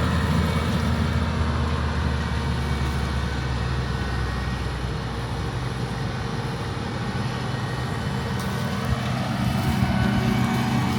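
Diesel engine of farm harvesting machinery running steadily, its level easing a little in the middle and building again near the end.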